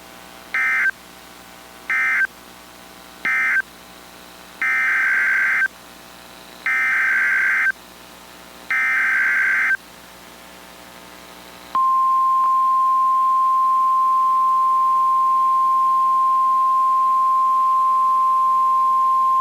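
NOAA Weather Radio SAME digital data bursts: three short end-of-message bursts, then three longer header bursts of about a second each, marking the close of one broadcast alert and the start of the next. About twelve seconds in, the steady 1050 Hz weather radio alert tone begins and holds.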